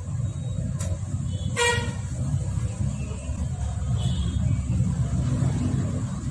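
Steady low rumble of motor traffic, with one short vehicle horn toot about one and a half seconds in.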